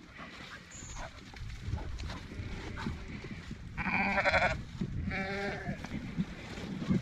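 A farm animal bleating twice, each call a quavering cry about half a second long, the first a little louder.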